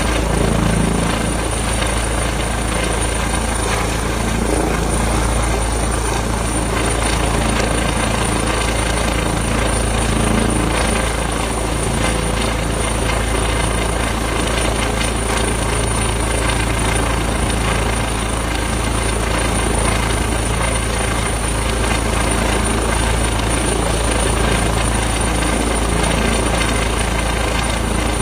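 Helicopter running steadily: a loud, constant drone with a thin, steady high whine over it.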